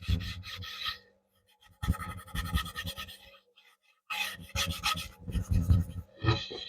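Wax being rubbed by hand into oak wood, in three bouts of quick back-and-forth strokes with short pauses between them.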